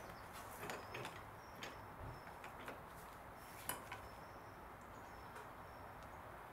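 Metal hand tools clinking as a socket wrench, lengthened with a second spanner, is fitted and levered on a tight 18 mm suspension nut. Several faint, scattered metallic clicks.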